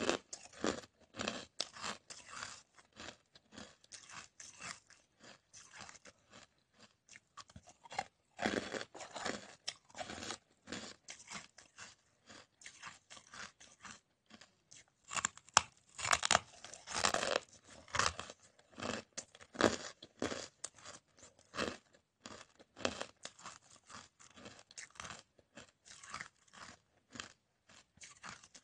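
Hard, crunchy coloured ice being bitten and chewed: a dense string of crisp cracks and crunches, loudest in clusters about eight seconds in and again around fifteen to eighteen seconds.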